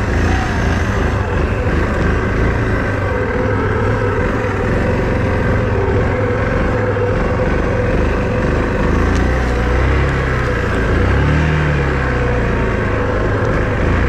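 A small ATV engine running steadily under way, its pitch shifting a little about ten seconds in.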